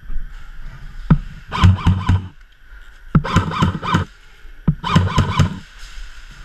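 Airsoft rifle firing three short bursts about a second and a half apart, each a quick run of shots lasting about half a second.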